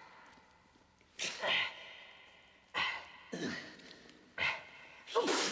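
Short, sudden strained grunts and gasps from people straining, about five in a few seconds.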